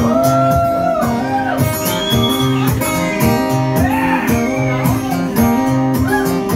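Acoustic guitar strummed in a steady rhythm, a solo live song intro before the first verse.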